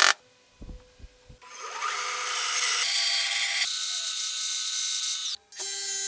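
A few light knocks, then a band saw cutting through a board for about four seconds. After a short break, an angle grinder spins a disc sander with a steady whine while a round wooden blank is sanded against it.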